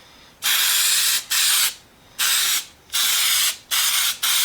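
Aerosol can of rust reformer spraying in about six short bursts of hiss. The can is almost empty and not spraying well, so it is worked in quick squirts.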